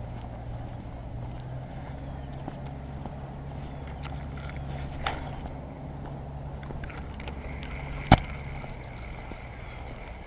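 A steady low engine drone runs throughout. About eight seconds in comes one sharp click, the loudest sound, as a spinning reel's bail snaps shut after a cast, with a fainter click about three seconds before it.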